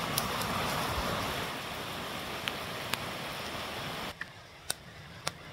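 Steady rush of running water, which cuts off abruptly about four seconds in, leaving a quieter background with a few sharp ticks.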